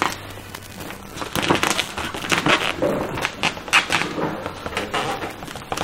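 Black vinyl wrap film crackling and crinkling as it is stretched and pulled by hand over a car body panel, in a quick series of sharp crackles.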